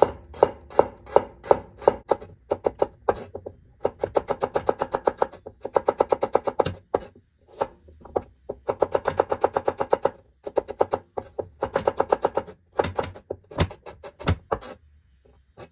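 Cleaver slicing shallots on a wooden cutting board: quick runs of knocking strokes, about three to five a second, broken by short pauses.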